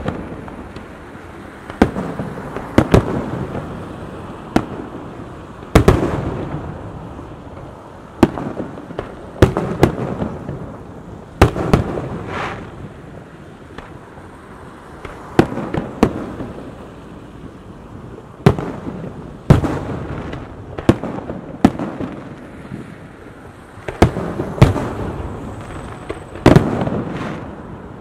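Aerial firework shells bursting in a display: sharp loud bangs every one to three seconds, sometimes two close together, each followed by a rolling echo.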